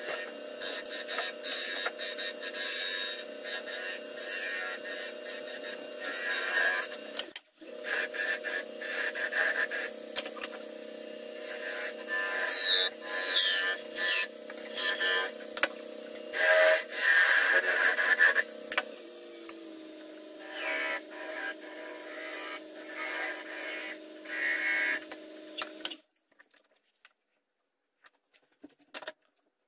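Wood lathe running with a steady motor hum while a hand-held turning tool scrapes and cuts a small spinning wooden workpiece, with the loudest stretches of cutting about halfway through. The hum drops slightly in pitch about two-thirds through and then cuts off near the end, leaving near silence with a few light clicks.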